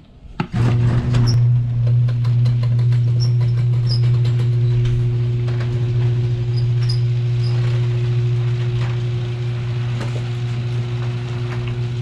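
Electric garage door opener running as the door rises: a steady motor hum that starts about half a second in, with many light clicks and rattles from the moving door.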